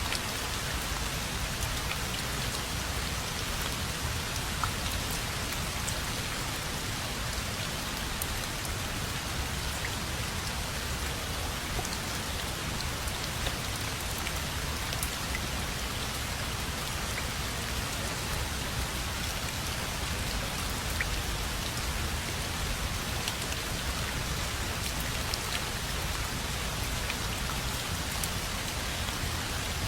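Steady rain falling, an even hiss with scattered small drops pattering on a surface.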